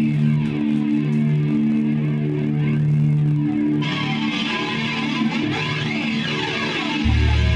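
Amplified electric guitar playing held notes, joined about four seconds in by a brighter, noisier layer. A loud, deep bass note comes in near the end.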